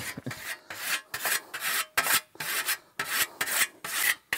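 Whetstone being stroked quickly along the edge of a steel scythe blade, honing it: a rhythmic scraping, about three strokes a second, with a metallic ring to each stroke.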